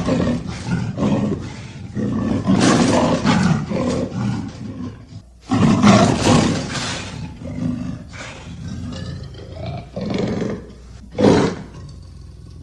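Leopard roaring and growling in a run of rough calls, with a brief break about five seconds in and a last short roar near the end.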